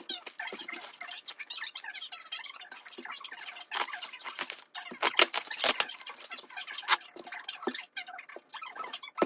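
Packaging being handled to unbox a die-cast model car: irregular crinkling and rustling with small clicks, a few louder crackles about four to seven seconds in.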